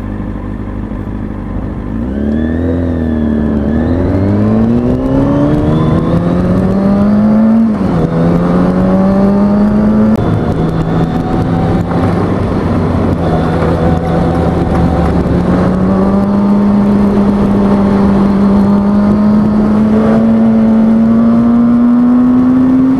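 2003 Kawasaki ZX-6R 636 sport bike's inline-four engine pulling away from low revs about two seconds in. It revs up and shifts up twice, with sudden drops in pitch, then cruises with engine speed slowly climbing.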